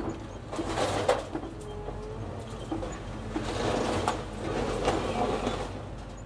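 A house being demolished: a machine running low and steady under irregular crunching and crashing of breaking building debris, with the heaviest crashes about a second in and again near four and five seconds.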